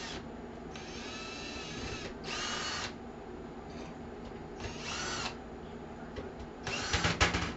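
Power drill-driver whining in four short bursts, its pitch rising in each, while backing out screws; a few sharp clicks come with the last burst near the end.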